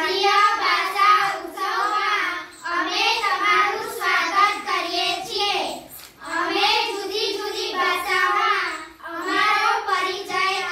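A small group of girls singing together in unison, in four phrases with short pauses between them.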